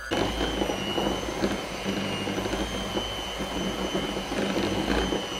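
Electric hand mixer running at a steady speed, its beaters churning through butter, condensed milk and vanilla in a bowl to cream it smooth. It gets louder right at the start, then holds a steady whine over the churning.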